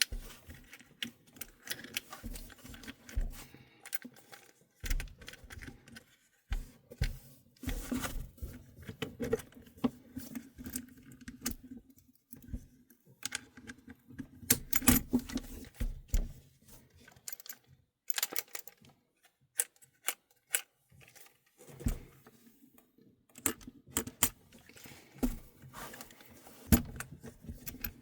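Hard parts of an airsoft folding stock and stock adaptor being handled: scattered clicks, taps and rattles with short pauses, and a busier cluster about halfway through.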